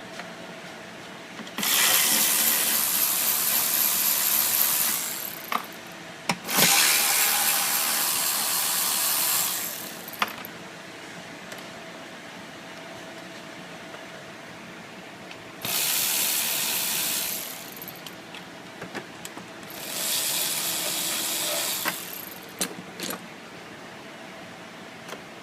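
A pneumatic tool, likely an air ratchet, run in four bursts of a few seconds each, hissing, with a few sharp clicks between bursts.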